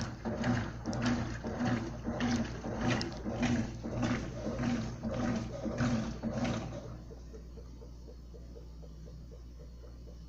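Consul CWL16A top-loading washing machine agitating: the agitator swishes the water back and forth in regular strokes about every half second over a steady motor hum. About seven seconds in, the strokes stop and only a quieter hum with faint ticking remains, a pause in the agitation cycle.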